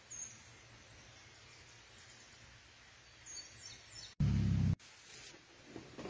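Outdoor background of birds chirping briefly over a faint steady low hum. Just after four seconds a loud, low half-second thump-like burst starts and stops abruptly, followed by a little light clatter.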